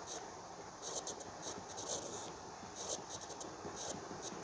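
Stylus writing on a tablet's glass screen: a run of short, quiet scratchy strokes, several a second, coming in clusters as letters are formed.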